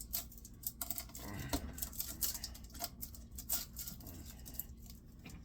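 Screwdriver prying and scraping at the copper windings and tight insulators in an electric motor's stator: irregular metal clicks and short scrapes.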